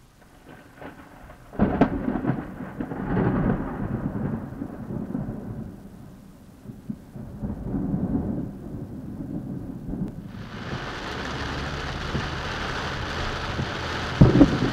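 Thunder heard from inside a car: a sharp crack about two seconds in, then a long low rolling rumble that swells again a few seconds later. About ten seconds in, a steady hiss of heavy rain starts abruptly, and a sharp crack of thunder comes near the end.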